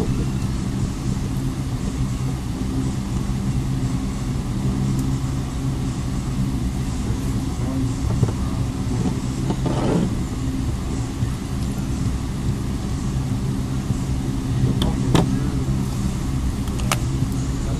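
A steady low mechanical hum, with a few light clicks near the end as the small plastic phone parts are handled.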